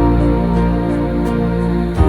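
Slow, gentle new-age music: an instrumental passage of held, sustained chords.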